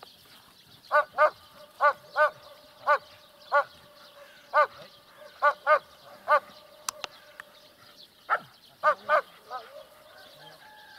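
A dog barking in short, high yelping barks, about a dozen, often in quick pairs, with a thin whine underneath and near the end. The barks come from the second dog, jealous and eager while the other dog gets the toy.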